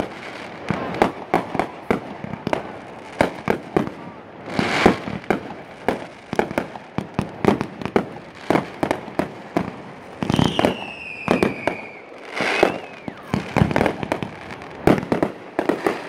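Fireworks going off in quick succession: many sharp bangs and crackles, with bigger booming bursts about five seconds in and again about twelve seconds in. Around ten seconds in, whistling shells give a high whistle that falls slightly in pitch.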